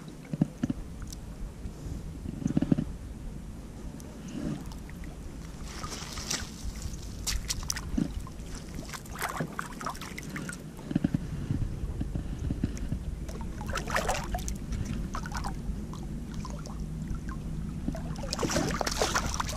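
Water splashing and sloshing in short bursts as a hooked fish is fought and brought in by a wading angler. A steady low wind rumble on the microphone runs underneath.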